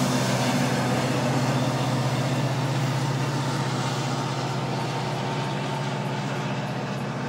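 Diesel freight locomotive's engine running with a steady low hum and a rumble of train noise, slowly fading.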